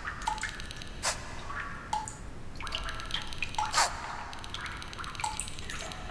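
Water dripping into a bathtub: single drops plinking about every one and a half seconds, with a few sharper, louder drops among them.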